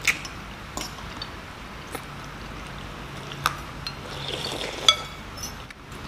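Metal spoons and forks clinking against ceramic soup bowls, about five sharp clinks, the loudest at the start and just before five seconds in, with a short soft spell of a spoon stirring soup in between.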